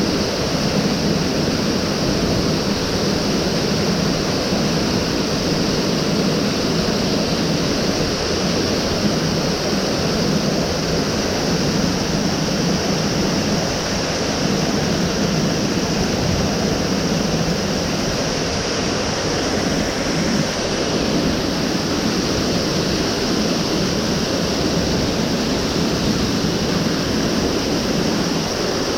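Mountain stream water rushing steadily over rocks, a constant even noise with no breaks.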